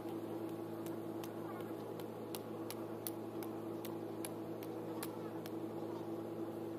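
Steady low mechanical hum with scattered short, sharp ticks over it.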